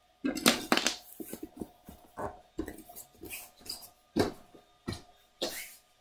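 Handfuls of small plastic Lego bricks dropped and tossed onto a wooden floor, clattering in a dozen or so irregular bursts.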